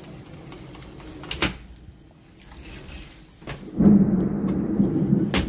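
Thunder in a severe thunderstorm. A sharp crack comes about a second and a half in. About four seconds in a loud low rumble breaks in and carries on, with another sharp crack near the end.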